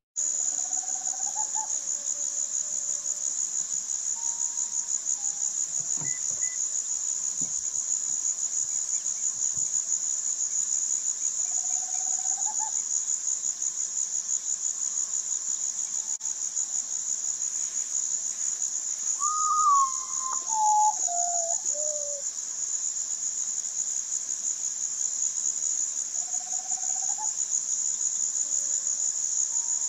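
Steady high-pitched insect chorus throughout. About 19 seconds in, a common potoo sings its song: a series of about five notes, each lower in pitch than the last.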